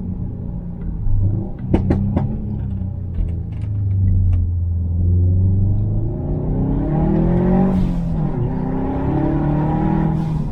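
Subaru WRX STi's turbocharged 2.5-litre EJ257 boxer engine, with a muffler-deleted exhaust, running at low revs with a few sharp cracks about two seconds in, then accelerating hard: the pitch climbs, drops quickly at a gear change near eight seconds, and climbs again.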